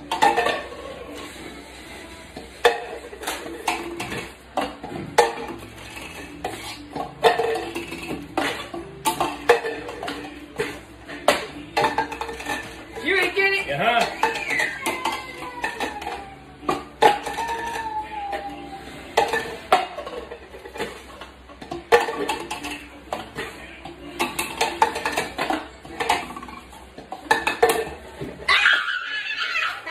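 Plastic cups repeatedly knocked and set down on a wooden tabletop, sharp clacks coming irregularly about once or twice a second, with brief voices in between.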